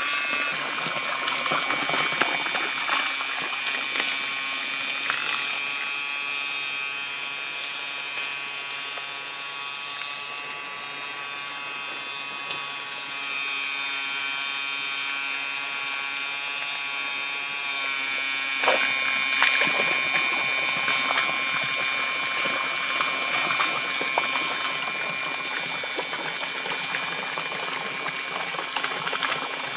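A 12 V water pump driven by a 775 DC motor runs with a steady high whine while its outlet stream gushes and splashes from the hose. The whine sags a little in pitch around the middle and comes back up, and there is a brief knock about two-thirds in.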